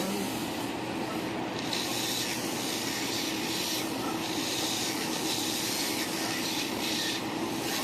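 Electric nail drill running steadily while filing acrylic nails, a continuous whirring hiss. Its higher gritty sound drops away and comes back several times as the bit is lifted off and pressed back onto the nail.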